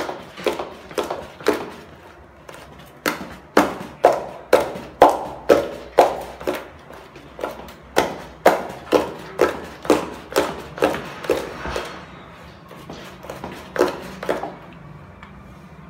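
Wooden stirring stick beating thick batter in a plastic bucket, knocking against the bucket about twice a second. There are two short pauses, and the knocking stops shortly before the end.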